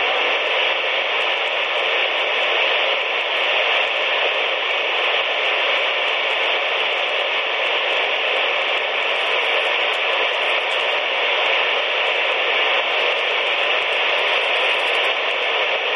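CB radio receiver tuned to 27.185 MHz (channel 19), putting out steady static hiss with no station coming through.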